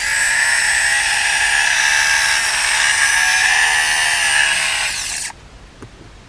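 Rotary electric shaver's motor running with a steady high whine on its newly fitted AAA rechargeable battery, a test run after the battery replacement, then switched off and stopping suddenly about five seconds in.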